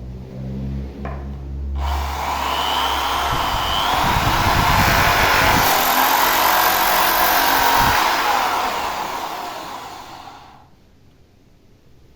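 Electric hand drill rigged as a sanding machine, running for about nine seconds and fading out near the end.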